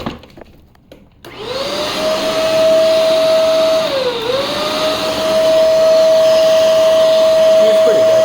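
Shark Duo Powerfins vacuum cleaner switched on a little over a second in, its motor spinning up with a rising whine to a steady high hum. The pitch sags briefly about four seconds in, then recovers. A few light handling clicks come just before it starts.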